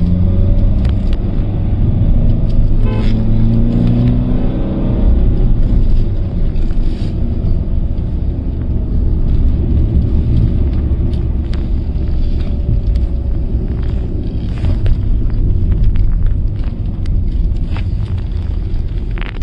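Steady low rumble of engine and road noise inside a moving car's cabin, with the engine note rising a few seconds in.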